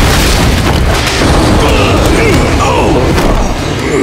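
Loud, continuous rushing noise with clatter, the sound effects of a cartoon scuffle in which two guards are overpowered.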